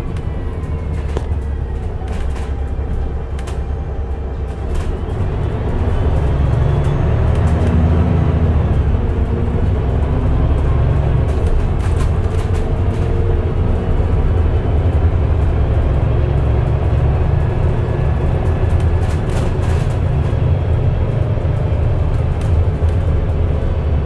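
Mercedes-Benz O405NH bus with a Voith automatic gearbox running under way: a steady low engine drone that grows louder about six seconds in as the bus pulls harder. Faint whines shift in pitch over it, with scattered light rattles.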